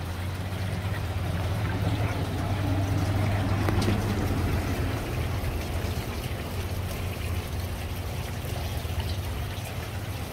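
Garden fountains bubbling, with water trickling and splashing over a stacked-slate sphere and then over a glazed ceramic urn. A low steady rumble underlies the first few seconds and eases off after about four seconds.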